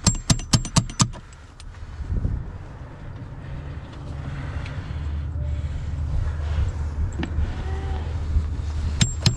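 Rapid run of sharp clicking taps, about six in a second, from a hand tool working on vinyl soffit panels; a second run starts near the end. In between, a low steady rumble.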